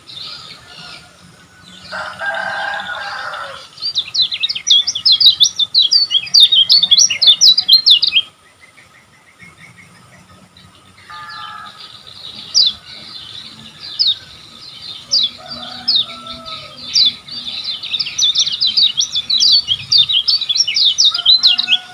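Kecial kuning (yellow white-eye) singing in long, fast runs of sharp high chirps, the rapid 'ngejos' chatter used as training song, in two loud bursts with a quieter pause between them. A shorter, lower call sounds about two seconds in.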